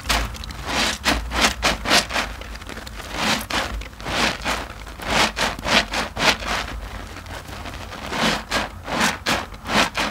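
Two soap-soaked IKEA mesh loofahs being squeezed over and over in the hands, making wet squelches of sudsy water and lather in a quick, uneven run of about two or three squishes a second.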